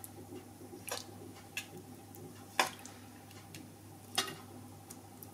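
A metal spoon scooping thick meat sauce out of a frying pan and spreading it over lasagne sheets in a ceramic dish: soft wet squelches and three sharp clinks of the spoon on the pan and dish, the loudest about two and a half seconds in. A steady low hum runs underneath.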